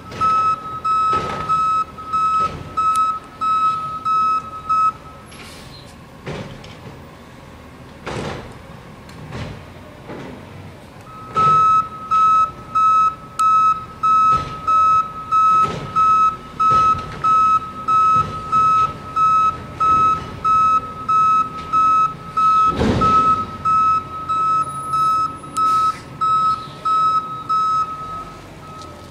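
Garbage truck backing up, its reversing alarm beeping at a steady one and a half beeps a second. The alarm pauses for about six seconds after the first few and then resumes, over the truck's running engine and a few scattered thumps, the loudest about three quarters of the way through.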